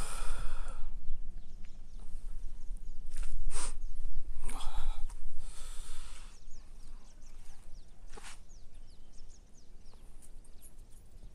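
Wind buffeting the phone's microphone, with a low rumble and several short breathy gusts over the first half. In the second half, small birds chirp in quick downward-sliding notes.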